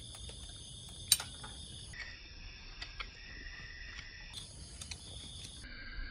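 Night insects, crickets, chirring in a steady high-pitched chorus, with a sharp tap about a second in and a few light ticks.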